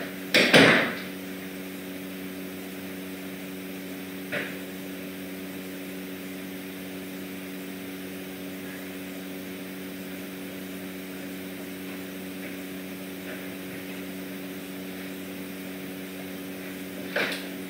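Steady low hum made of several even tones. A loud knock comes about half a second in, with fainter clicks about four seconds in and near the end.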